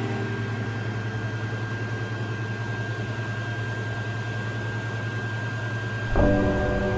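Creality Ender 3 3D printer running: a steady low hum from its fans and stepper motors, with a faint high whine over it. Music comes in suddenly near the end.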